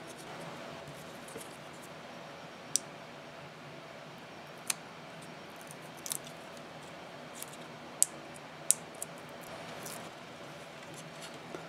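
Small 3D-printed plastic parts and a Raspberry Pi camera module being handled and fitted together by hand. They give a handful of sharp, short clicks over a steady faint hum.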